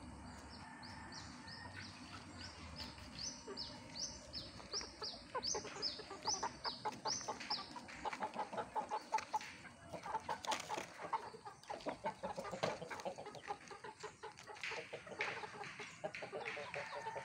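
Bangkok gamecock chickens clucking, dense short clucks from about five seconds in. Before that, a run of high rising chirps about two a second.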